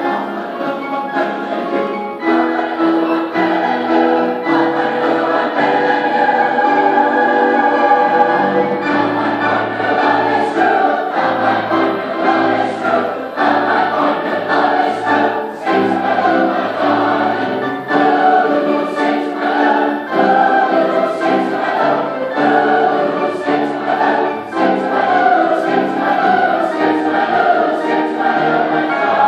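A large mixed choir of middle and high school singers singing, several voice parts holding notes together at full voice.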